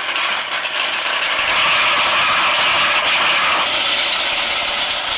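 Loud, continuous, harsh mechanical rattling and grinding of a power tool working on metal, painfully loud up close.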